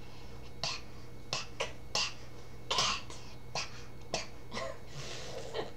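An 11-month-old baby spitting and sputtering through his lips, about a dozen short, separate puffs.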